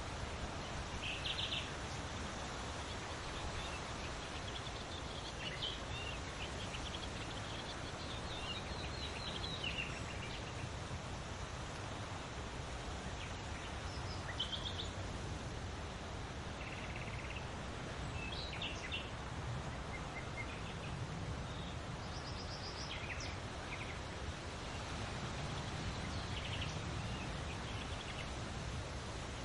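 Steady hiss of a soft breeze through a forest, with scattered short chirps and twitters from several small birds every few seconds.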